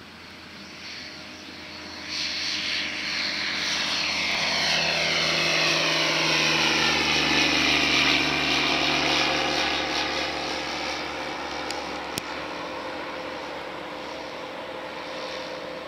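Aquila A211 light aircraft with a Rotax 912 S four-cylinder engine driving its propeller at climb power just after takeoff, flying past. The sound builds to its loudest about halfway through, drops in pitch as the plane passes, then fades as it climbs away.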